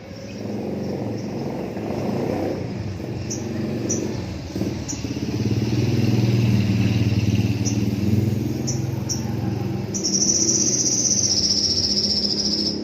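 Motorcycle engine running steadily at low revs, louder from about five seconds in. A steady high-pitched tone joins near the end.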